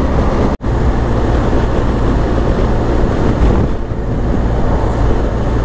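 BMW R1250GS Adventure's boxer-twin engine running steadily at road speed under wind rush, with a brief dropout about half a second in.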